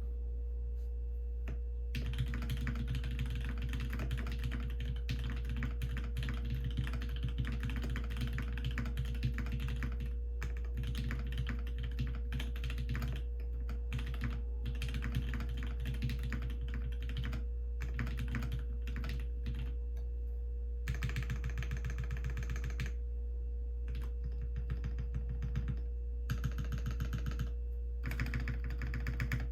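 Typing on a Think6.5 V2 custom mechanical keyboard with lubed and filmed Alpaca V2 linear switches, a gasket-mounted FR4 plate and GMK ABS keycaps. It gives a fast, continuous clatter of keystrokes that starts about two seconds in and breaks off for brief pauses.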